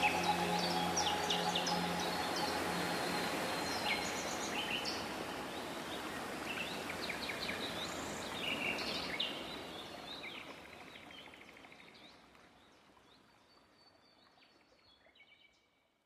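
Forest bird chorus: many small birds chirping and trilling over a steady background hiss, with soft held music notes fading out in the first few seconds. The whole chorus fades out gradually over the last several seconds.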